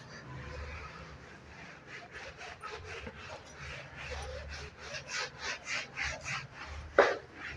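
Whiteboard being wiped clean in quick back-and-forth rubbing strokes, about three a second, with one short louder sound near the end.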